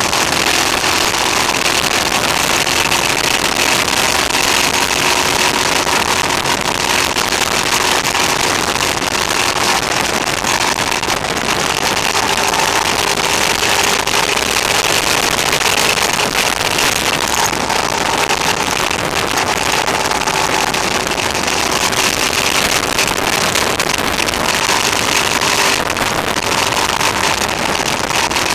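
Motorcycle cruising at steady speed, its engine a faint, even hum under loud, constant wind rush over the camera microphone. The recording is harsh and overdriven because the camera's sound level was set too high.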